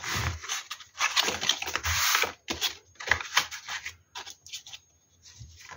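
Card stock and a paper frame with an acetate window being handled and moved on a table: paper rustling and sliding, densest for about a second starting about a second in, then a string of short rustles, scrapes and taps.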